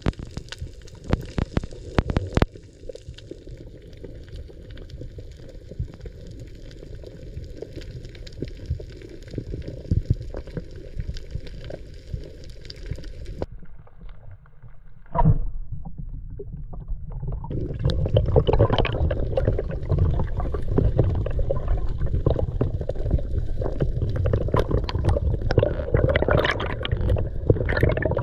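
Muffled underwater water noise picked up by a diver's camera, with scattered clicks. About halfway through it cuts out briefly after a sharp click. Then a louder, rougher rush of moving water with a low rumble follows.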